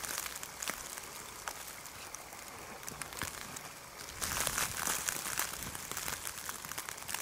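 Outdoor hiss of wind and blowing snow on the camcorder microphone, with scattered crackling ticks like nylon jackets rustling, and a low buffeting rumble underneath. The noise swells into a louder rush about four seconds in.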